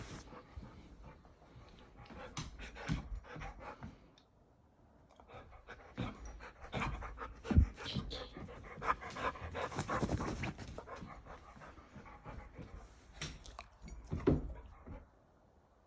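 A pet animal panting and moving about, with scuffing and rustling and two sharp thumps, the louder one about halfway through and another near the end.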